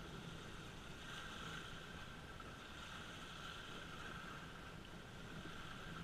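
Choppy lake water washing onto a rocky shore, with wind and a steady low rumble underneath.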